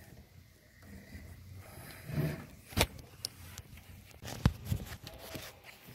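Socket wrench on a long extension clinking and knocking against metal parts in an engine bay, with two sharp knocks, about three and four and a half seconds in.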